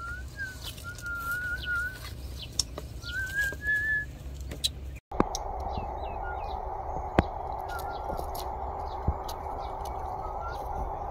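Birds calling outdoors with wavering whistled notes, several in the first few seconds. About five seconds in, after a brief break, a steady even background noise takes over, with fainter whistled calls now and then.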